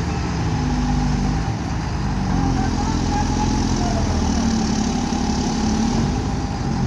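Heavy diesel engine running steadily, its pitch wavering slightly.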